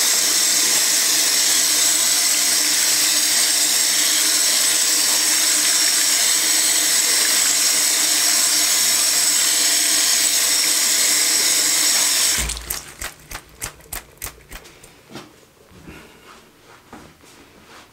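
Tap water running steadily into a sink, stopping suddenly about twelve seconds in, followed by scattered drips and small clicks.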